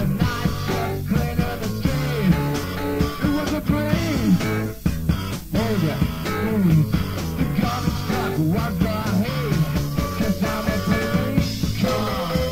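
Live rock band playing: an electric guitar lead with bending, gliding notes over bass and drums.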